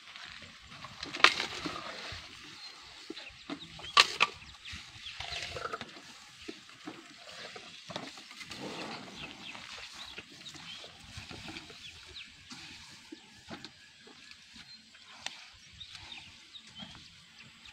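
Asian elephants feeding on watermelon and bamboo: scattered crunches and cracks, with two sharp, loud ones about one second and four seconds in.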